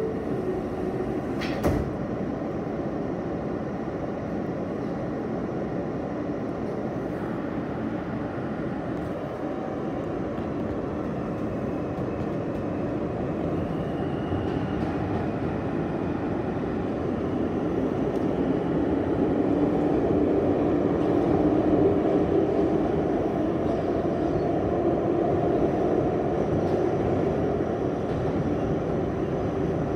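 R160 subway car running on the track, a steady rumble heard from inside the car at its end door, with a single sharp knock about two seconds in. The running noise grows louder over the second half.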